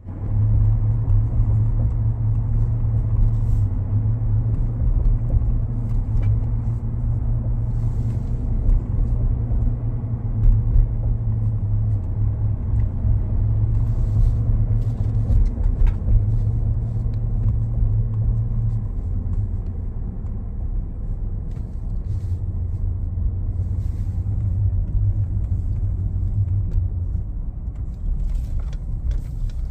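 Steady low hum from a 2019 Ford F-150 Lariat 3.5 on the move, over road rumble. The hum eases off about two-thirds of the way through, then comes back. The owner suspects the integrated wheel ends (IWE), the 4x4 actuators or the front differential.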